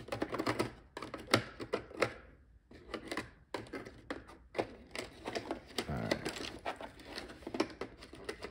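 Plastic packaging handled by hand: a stiff plastic tray and bagged accessories being rummaged through, giving rapid irregular clicks and taps with rustling of thin plastic bags.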